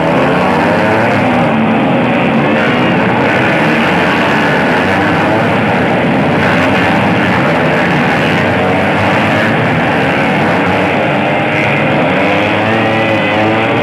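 Several racing motorcycle engines running at high revs together, their overlapping pitches rising and falling as they rev and pass.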